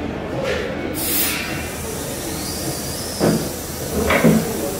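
A steady hiss over a low rumble, with two heavy footsteps thudding on a wooden floor about three and four seconds in.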